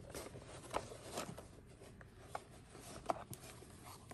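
Quiet rustling of fabric against a plastic accordion file folder as a folded piece of quilting cotton is pushed into one of its pockets, with a few light clicks and taps from the plastic, the sharpest about three seconds in.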